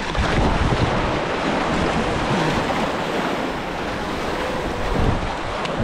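Small waves washing and sloshing among granite jetty boulders, a steady rushing surf.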